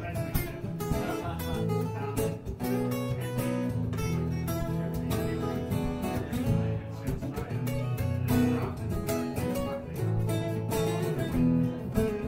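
Acoustic guitar strummed solo in a steady blues rhythm, without vocals.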